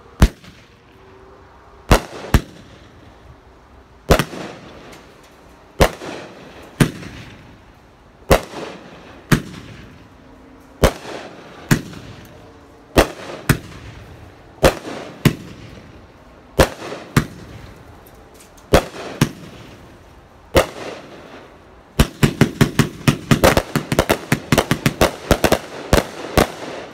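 Air Madness 500-gram firework cake firing: a sharp bang every second or so, each with a fading tail, then near the end a rapid volley of many bangs in quick succession as the cake reaches its finale.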